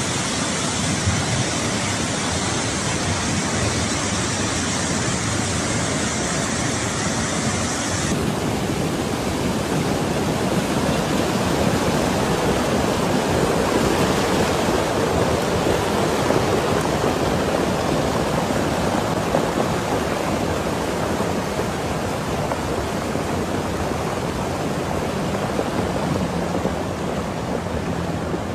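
Flash-flood torrent of muddy water rushing and churning in a steady loud roar of noise. About eight seconds in the sound turns duller and deeper.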